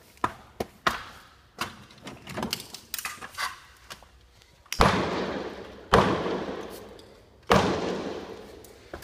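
Heavy hammer blows on a concrete block wall, breaking it out: a run of lighter knocks and clicks, then three hard strikes about a second and a second and a half apart, each followed by a long fading rattle.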